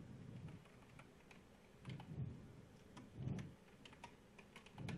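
Faint computer keyboard typing: a handful of soft, irregular keystrokes.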